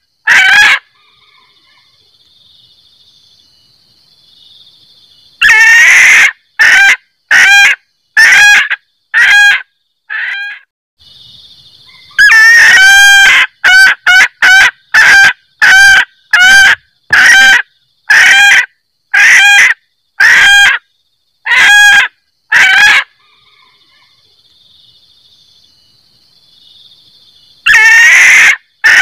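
Female junglefowl cackling ('kek-kek') call, played loud as a lure for males. Each bout opens with a longer call and runs into short, evenly repeated 'kek' notes at about one and a half a second. Bouts are separated by pauses of a few seconds.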